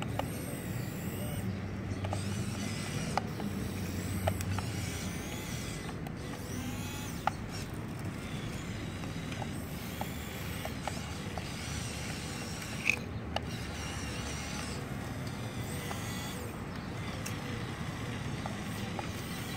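Radio-controlled Komatsu PC1250 model excavator working: its small electric motors and gearboxes whine, wavering in pitch as the boom, arm and bucket move. Scattered clicks and ticks run throughout, with one sharper click about 13 seconds in.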